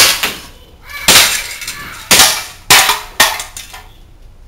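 Five sharp cracks from a WE Sig 226 gas blowback airsoft pistol being fired, each dying away quickly; the last three come in quick succession.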